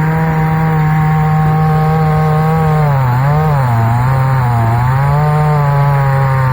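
Start Pro two-stroke petrol chainsaw running at a steady high speed; about halfway through, its pitch dips twice briefly and then recovers.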